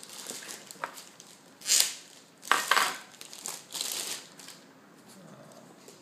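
Clear plastic bag crinkling in several short bursts of rustling as a boxed GoPro dive housing is pulled out of it, the loudest between about two and three seconds in and again near four seconds.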